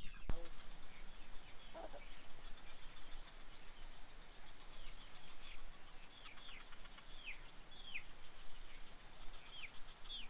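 Village farmyard ambience: short, high chirps that slide downward, repeating irregularly and more often in the second half, with a single low cluck about two seconds in, over a steady faint high hiss.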